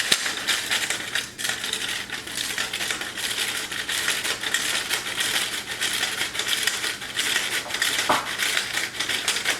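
Hand-worked metal flour sifter in use, its mechanism rattling and scraping in a fast, continuous run of clicks as flour is worked through the mesh.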